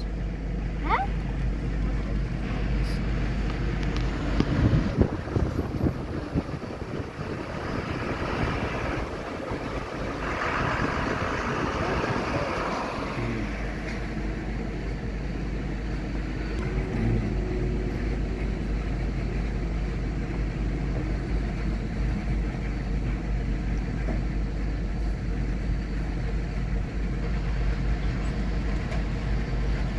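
Road traffic heard from inside a vehicle's cabin: a steady low engine rumble as military trucks drive past close alongside. There is a louder swell of noise from about eight to thirteen seconds in.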